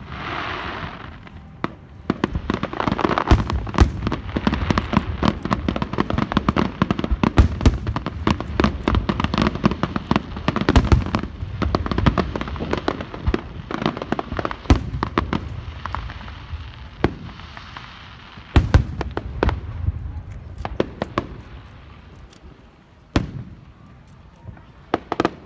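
Fireworks going off in a dense, rapid barrage of bangs and crackles that thins out to a few separate bangs near the end.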